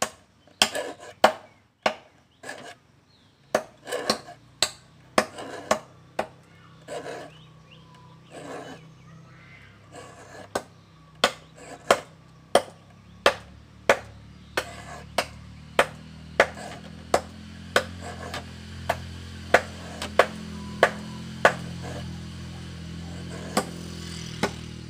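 Hand file sharpening the teeth of a dull wood-cutting hand saw: short scraping strokes of the file on the steel teeth, about two a second, with a lull a few seconds in. A low steady hum comes up in the background in the second half.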